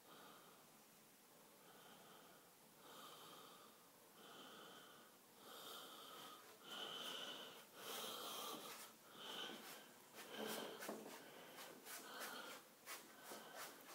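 Faint, wheezy breathing, about one breath a second, growing louder after about six seconds in, with a few sharp clicks near the end.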